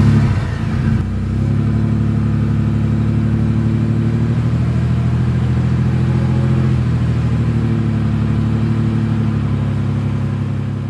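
Mini tractor's engine running steadily at an even pitch, after an unsettled first second.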